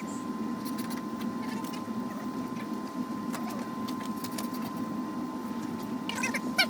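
Steady low hum with a faint steady tone. Over it come scattered light clicks and rattles of small parts being handled, and a brief burst of squeaky sounds near the end.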